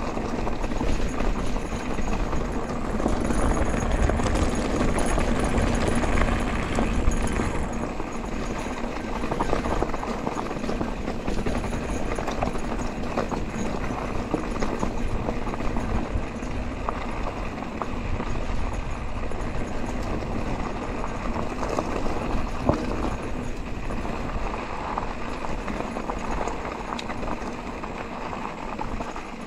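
Mountain bike rolling downhill on a loose gravel dirt road: tyres crunching over stones and the bike rattling, with wind rushing over the camera microphone. It is loudest in the first several seconds, then eases a little.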